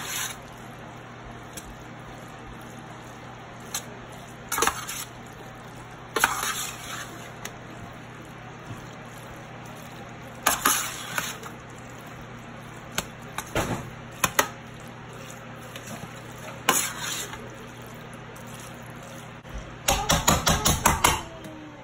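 A utensil folding and stirring cheesy elbow macaroni in a baking pan, scraping and clinking against the pan now and then. Near the end comes a quick run of about eight strokes.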